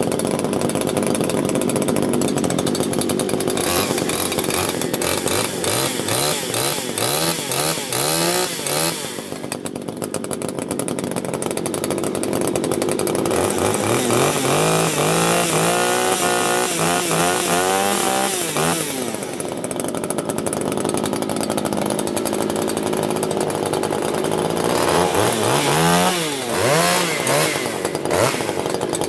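Husqvarna 339XP two-stroke chainsaw running, revved up and down several times and dropping back lower between the revs.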